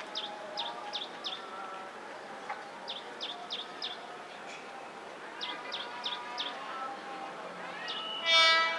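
A bird calling in repeated sets of four or five quick, high, downward-sweeping chirps, over a faint murmur of distant voices. Near the end comes a short, loud, horn-like tone.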